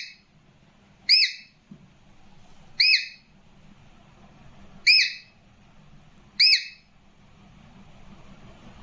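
A pet parrot whistling: five short, sharp whistles, each rising then falling in pitch, at uneven gaps of one to two seconds.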